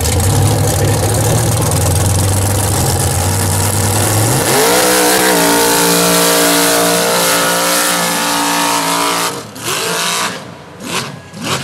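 Nitrous-fed small-block Chevy V8 in a square-body Chevy mud truck, running at the start line, then launching about four and a half seconds in with a sharp climb in revs and holding high revs at full throttle for about five seconds down the mud drag lane. The engine sound drops away near the end, followed by a few short loud bursts of noise.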